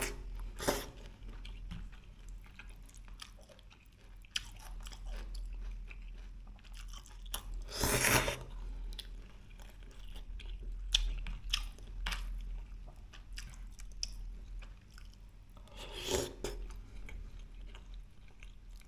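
A person chewing food close to the microphone, with small irregular crunching and clicking sounds, and louder bursts of noise about eight and about sixteen seconds in.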